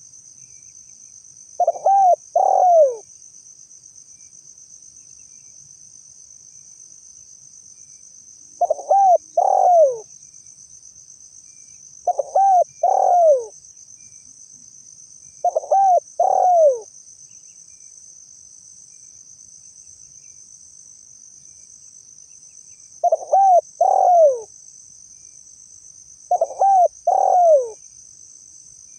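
Spotted dove (tekukur) cooing: six short phrases of a few low coos each, the last note of each phrase falling in pitch, spaced a few seconds apart. A continuous high-pitched insect trill runs underneath.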